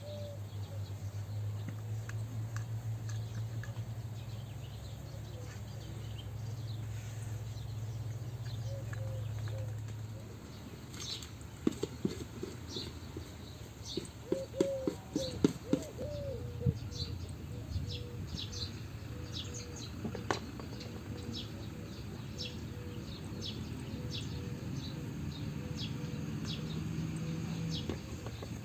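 Small birds chirping again and again over a low steady hum that stops about a third of the way in; a cluster of sharp knocks and clatters comes in the middle and is the loudest part.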